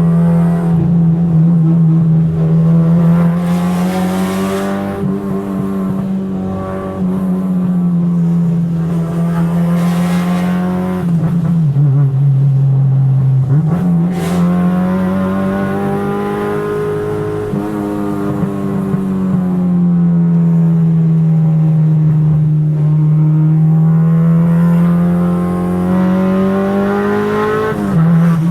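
Car engine running hard and continuously under driving load, its pitch swelling and sagging slowly as the revs rise and fall. Twice the revs drop briefly and then climb sharply again: once about halfway through and once just before the end.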